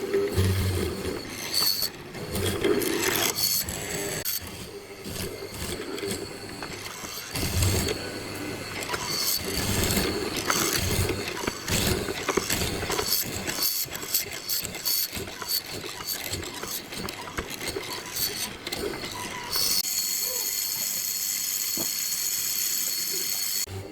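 Workshop sounds of wood and tools being handled: a run of irregular knocks and clatter, then a steady machine whir for the last few seconds.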